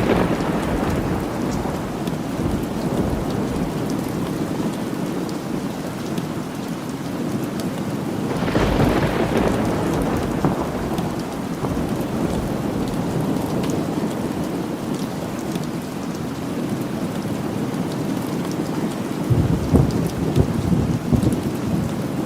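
Steady rain falling, with a roll of thunder swelling about eight seconds in and fading away over several seconds, and another low rumble of thunder near the end.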